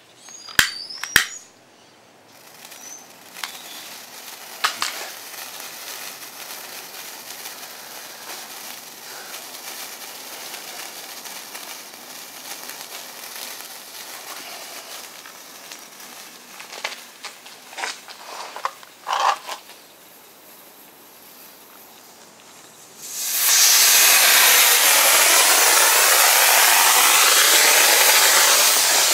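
Two sharp clicks, then an igniter fuse at the nozzle of a potassium-nitrate (KNO3) rocket motor sputtering and crackling for about twenty seconds, with a few sharp pops. About 23 seconds in the motor ignites with a loud, steady, rushing hiss.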